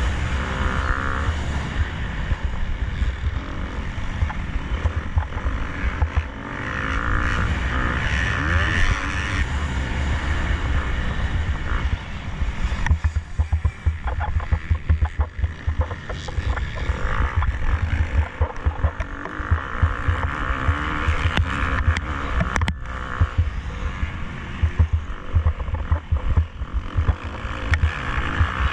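KTM 250 SX-F four-stroke single-cylinder motocross engine under racing load, revving up and backing off again and again as the throttle is opened and chopped. One sharp knock about three-quarters of the way through.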